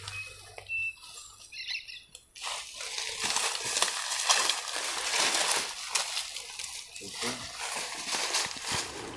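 Footsteps crunching and crackling through dry leaf litter and twigs, irregular and close, picking up about two seconds in after a quieter start.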